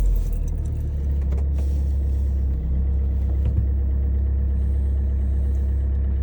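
Car engine idling steadily in freezing weather, just after a cold start, with a steady low rumble.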